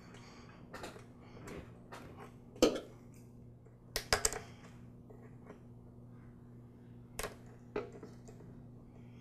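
Needle-nose pliers clicking against a spring hose clamp as the clamp is squeezed and slid onto the rubber fuel line at the fuel shutoff valve: a handful of light metal clicks and taps, the loudest about two and a half seconds in and a quick cluster around four seconds, over a faint steady hum.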